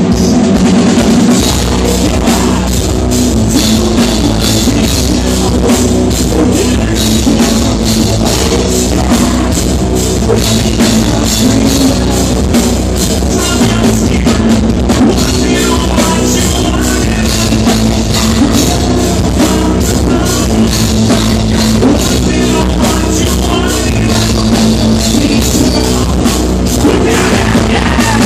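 Rock band playing live at full volume: electric guitars and a drum kit with a steady, driving beat, and a singer's vocals over them.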